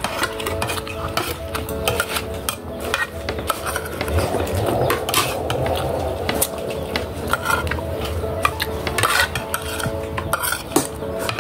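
Metal spoon and fork clinking and scraping against plastic plates as people eat, a scatter of short irregular clicks.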